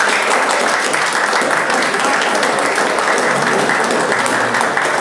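A group of about twenty people clapping their hands together in steady, dense applause.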